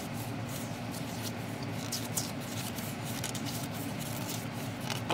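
Paper pages of an album photobook being turned by hand: soft, scattered rustles and light taps over a steady low hum.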